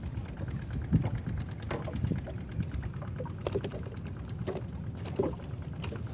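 Scattered small taps and drips as a wet fishing line and float are handled on a wooden boat deck, over steady low background noise.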